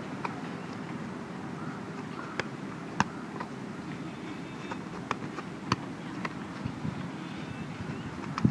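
A football being struck by a player: sharp single thuds every second or so, some in quick runs about half a second apart, over steady outdoor background noise.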